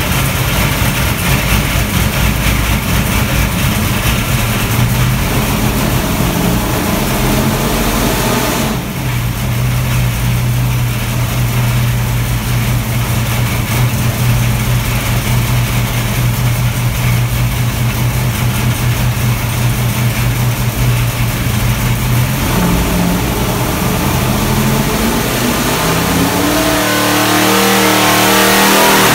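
Small-block Chevy V8 running on an engine dyno, loud and steady at a held speed. In the last several seconds its pitch climbs in steps as the rpm is raised for a pull.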